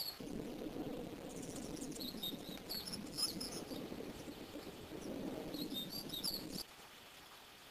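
Birds chirping: a few groups of short, high, wavering calls over a steady low rustling noise that stops abruptly near the end.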